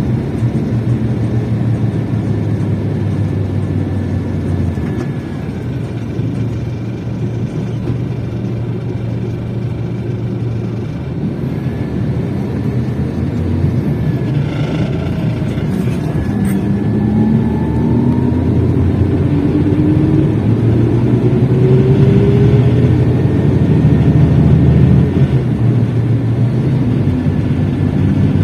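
Scania K380 bus engine running with a steady low drone. In the second half it revs up, the pitch rising steadily and the sound growing louder as the bus accelerates, with a brief click or two about halfway.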